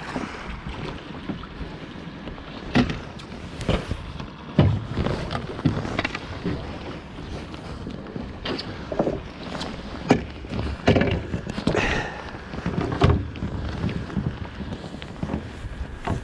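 Wind buffeting the microphone, with irregular knocks and clatters of gear being handled.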